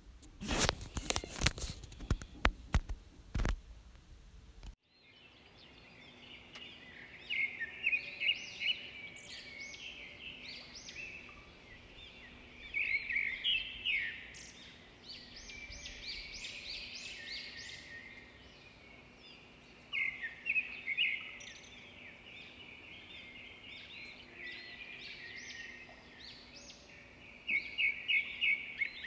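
A series of sharp knocks or clicks over the first few seconds, then, after an abrupt cut, birds chirping and chattering in repeated bursts of quick high notes, over a faint steady low hum.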